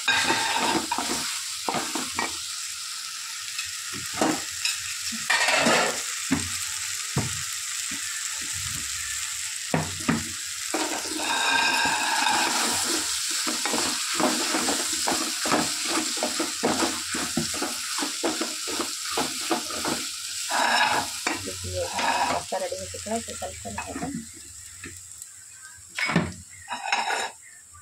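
Wooden spatula stirring and scraping fusilli pasta with vegetables around a large metal pan, over a steady sizzle of frying. The stirring and sizzle die down in the last few seconds, with a couple of sharp knocks near the end.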